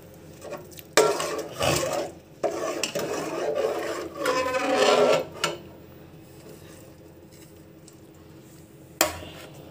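A steel spoon stirring and scraping in an aluminium pot of sugar syrup for a few seconds, then a single sharp metal knock near the end.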